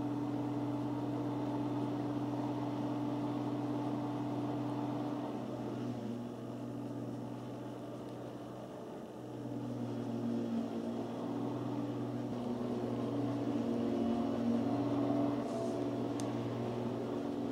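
Lawnmower engine running steadily with a low droning hum, dipping a little around the middle and growing louder again after about ten seconds.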